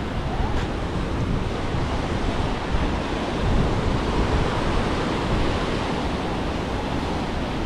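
Sea surf washing onto the beach, a steady rushing with wind buffeting the microphone.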